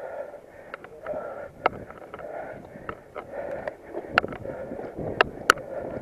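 Mountain bike rattling over a bumpy dirt singletrack: irregular sharp clicks and knocks as it hits bumps, over a steady rush of wind and tyre noise.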